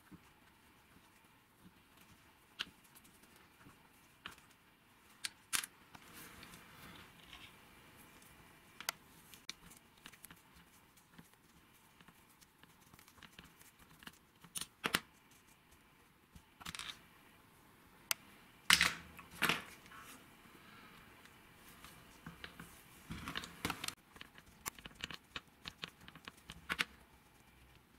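A thin pick poking and scraping in a hole in an old hammer drill's rusted housing: scattered sharp clicks and short scrapes, loudest about two-thirds of the way through.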